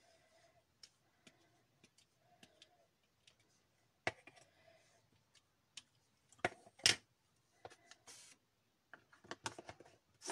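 Light clicks and taps of rubber-stamping supplies being handled on a craft desk, with a few sharper knocks about four seconds in, twice around seven seconds, and again near the end.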